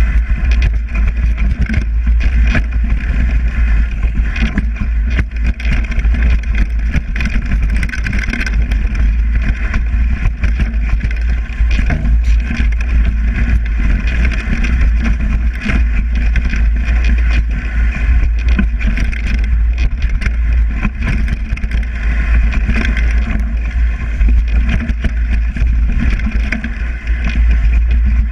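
Mountain bike descending fast on a leaf-covered forest trail, heard through the on-board camera's microphone: a continuous low wind rumble on the microphone, with constant rattling and knocking from the bike and tyres over the rough ground and dry leaves.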